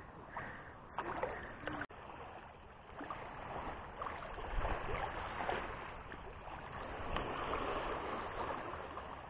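Shallow seawater lapping and sloshing with small irregular splashes around someone wading.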